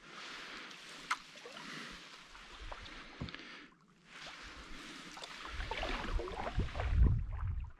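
Water splashing and lapping around a paddled canoe, with a few light knocks. From about five and a half seconds in, wind buffets the microphone.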